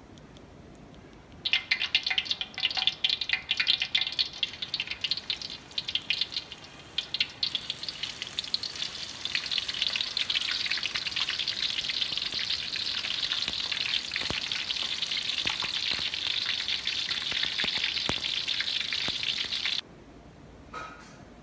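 Soy meat deep-frying in hot oil. It starts about a second and a half in with loud, irregular crackling and spattering, settles into a dense, steady sizzle, and cuts off suddenly near the end.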